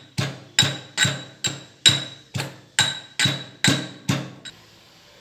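Metal pestle pounding in a tall metal mortar, about two ringing clanks a second, stopping about four and a half seconds in.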